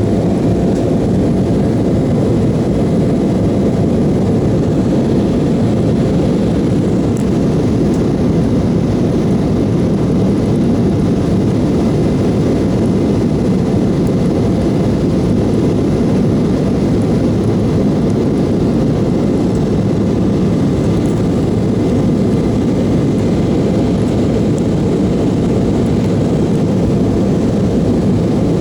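Airliner passenger-cabin noise: a steady, unbroken rumble of engines and airflow with a faint steady whine above it.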